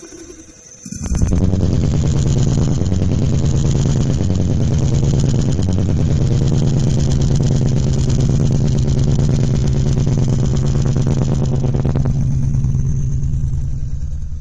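Loud bass-heavy music from a DC Audio Level 5 M1 15-inch subwoofer in a ported box, heard inside the car cabin. It cuts in about a second in. The bass steps between a few low notes, then holds one long deep note until it fades out near the end.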